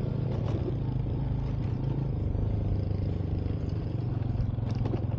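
Motorcycle engine running steadily under way, with a few light clicks and rattles.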